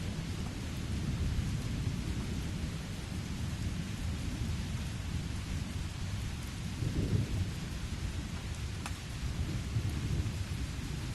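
Steady rain with low, rolling thunder rumbling underneath; the rumble swells about seven seconds in.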